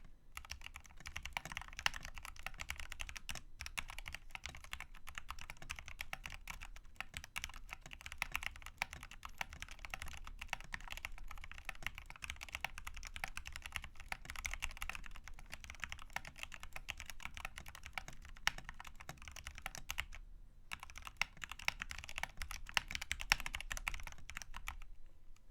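Continuous fast typing on a Redragon Deimos (K599) mechanical keyboard with lubed Outemu Red linear switches, XDA-profile keycaps and band-aid-modded stock stabilisers: a dense run of key clacks with one short pause about twenty seconds in, stopping just before the end.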